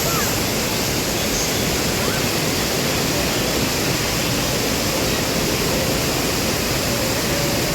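Waterfall: a loud, steady rush of falling water, unbroken throughout.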